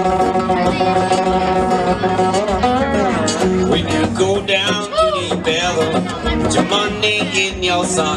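Live blues band playing an instrumental break: acoustic guitar strumming a steady rhythm under a lead line of bending, sliding notes.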